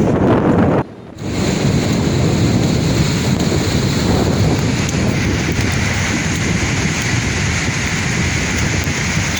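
Sea waves washing on the shore, with wind buffeting the microphone. The sound drops out briefly about a second in.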